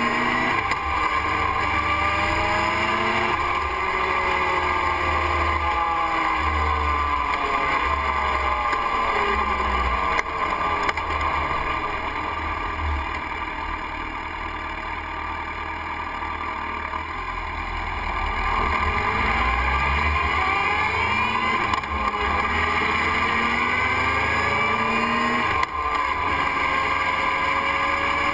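Motorcycle engine and wind noise while riding, with the engine pitch rising and falling through the gears. It eases off and goes quieter around the middle as the bike slows to turn, then climbs again as it pulls away.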